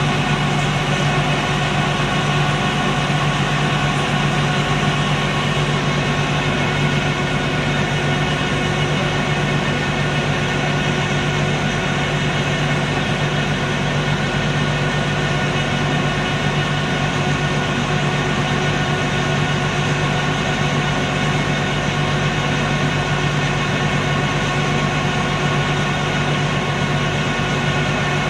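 A boat's engine running steadily, heard from on board the moving boat: an unchanging drone with a strong low hum and many steady overtones.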